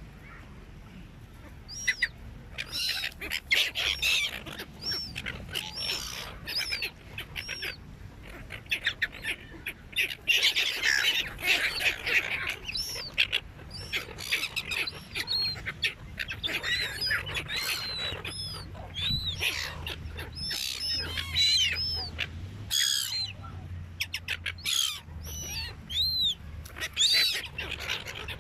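A flock of seagulls squawking, many short high calls overlapping, busiest about ten seconds in and again after twenty.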